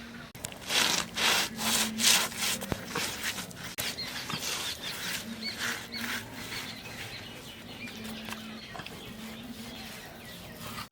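Rhythmic rasping scraping strokes, about three or four a second, loudest in the first few seconds and then fainter.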